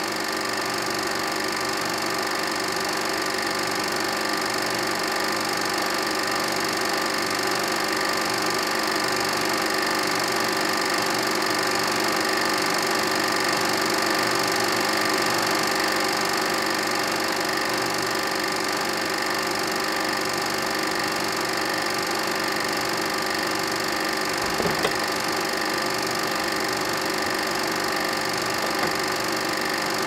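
Film projector running with a steady mechanical whirr and clatter, a couple of soft knocks near the end.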